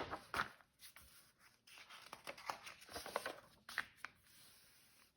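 Faint paper rustling with a few light taps, the sound of a picture book being handled.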